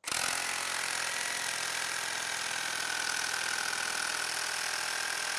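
Milwaukee brushless cordless reciprocating saw running at speed and cutting through a stack of laminate flooring boards, with its orbital action switched off. It starts suddenly and runs steadily, with a constant high whine over the blade's rapid chatter.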